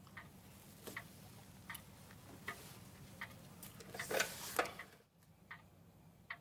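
A clock ticking steadily, a little under one tick a second, over a low room hum. About four seconds in comes a short clatter of louder clicks as a telephone handset is lifted from its cradle.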